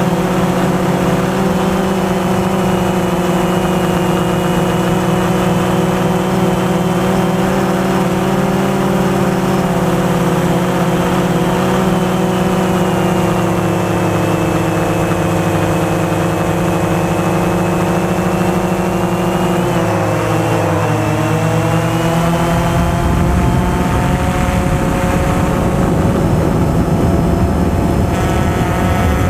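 DJI Phantom 2 quadcopter's electric motors and propellers whining steadily in flight over a rush of wind, their several tones drifting in pitch together as the motors change speed, with a marked dip and recovery about two-thirds of the way through.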